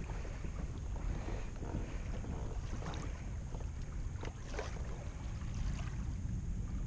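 Wind buffeting the kayak-mounted camera's microphone, a steady low rumble, with water lapping and slapping softly against the kayak hull.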